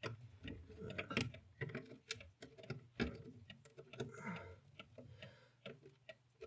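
Quick, irregular clicks and light taps, several a second: mechanical clocks ticking, mixed with small handling noises as glue is run along a broken clock part.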